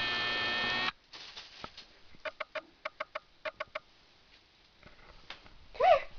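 A steady electronic tone for about the first second stops suddenly. Then come about ten short chirps at one pitch, some in pairs. Near the end a kitten gives one meow that rises and falls in pitch.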